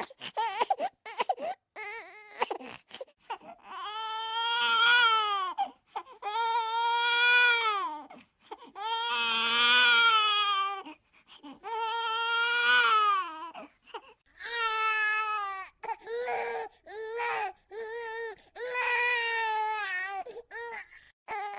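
Baby crying: short, broken cries at first, then a run of long, high wails of about two seconds each with brief pauses for breath between them, then choppier cries and one more long wail near the end.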